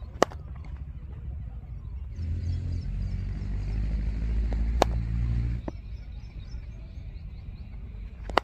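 A motor vehicle's engine running at low revs, louder from about two seconds in until it drops away past five seconds, with a few sharp cracks; the loudest is a single crack right at the start.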